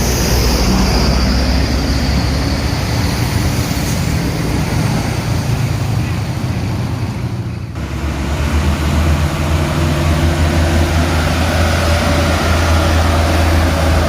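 Heavy road vehicle's engine labouring up a steep incline, with passing traffic noise. The engine note dips briefly about eight seconds in, then comes back as a deeper, steadier drone.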